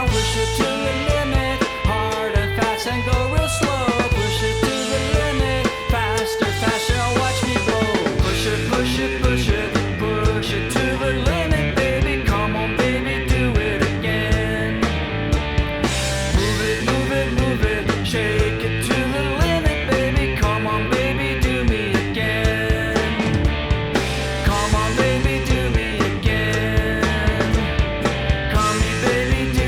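Rock music with drum kit, guitar and vocals playing continuously, a steady beat throughout.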